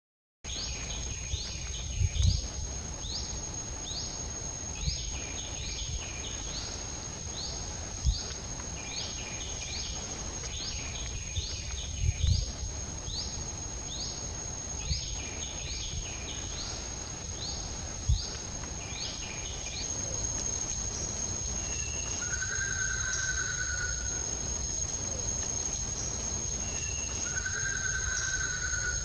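Outdoor nature ambience: a steady high-pitched insect drone, with a rapid run of short rising chirps, about two a second, for the first two-thirds. Two short whistled calls come near the end, and a few dull low thumps break in now and then.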